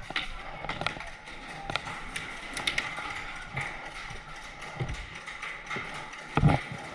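Paintball game: scattered sharp pops and clicks of paintball markers firing and paintballs striking nearby, at an irregular pace, with a louder low thump near the end.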